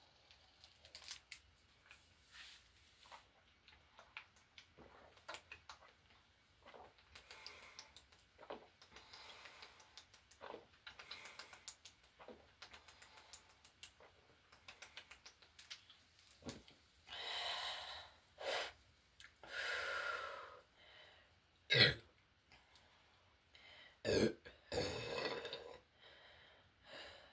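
A person drinking sparkling water and burping: a string of small clicks and swallowing noises, then several longer, louder burps in the second half.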